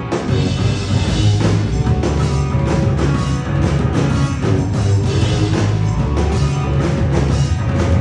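Live rock band playing loud, with the full band coming in hard right at the start and a heavy, driving low end from then on.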